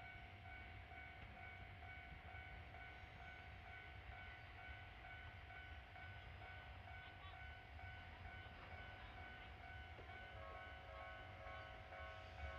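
Faint, steady whine and hum from a distant ED45 electric freight locomotive standing at a station, over a low rumble; a second set of tones joins about ten seconds in.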